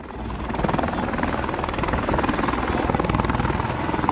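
Helicopter running close by, its rotor blades making a rapid, steady beat over the turbine noise; the sound fades in over the first half second.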